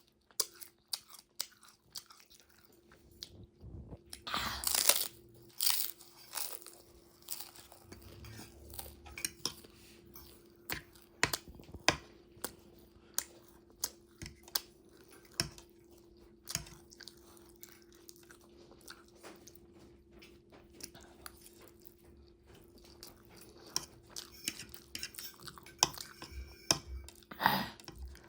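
Close-up chewing and biting, with many sharp irregular crunches of food between the teeth, over a faint steady hum.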